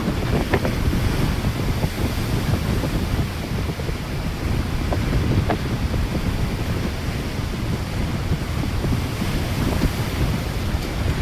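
Strong wind buffeting the microphone over rough, storm-driven sea waves, a steady heavy rumble with a few small knocks.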